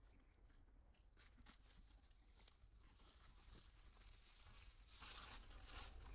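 Faint rustling and scattered crackling clicks, with a louder rustle about five seconds in.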